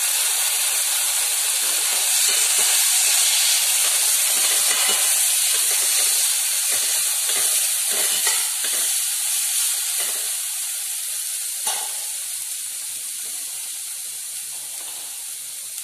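Stir-fried vegetables sizzling and hissing in a hot stainless-steel kadai, vinegar having just been poured onto the hot pan, while a spatula stirs them. The hiss is loud for the first ten seconds or so, then slowly dies down.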